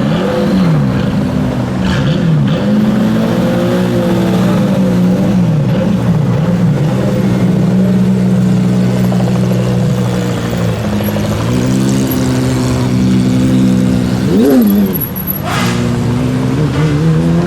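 Hypercar engine running loudly, its pitch swinging up and down with the throttle, then holding steady. About three-quarters of the way through it gives one quick sharp rev that drops straight back.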